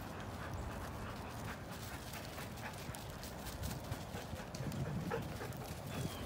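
Footsteps and dogs' paws crunching and rustling irregularly on dry leaf litter and mulch, with a steady low rumble underneath.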